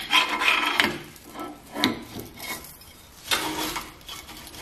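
Magnetic chip collector wand swept over loose steel drill chips on a metal drill press table: the chips scrape and rattle across the table and onto the magnet. The scraping comes in bursts, at the start, about two seconds in, and again a little after three seconds.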